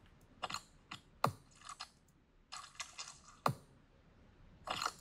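Irregular computer mouse clicks and short clattery bursts of desk handling, a handful of sharp clicks a second or so apart.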